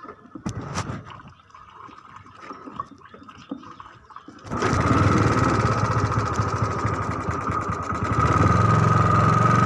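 A small engine starts abruptly about halfway through and keeps running steadily, its low note growing stronger near the end. Before it starts there are only light clicks and knocks.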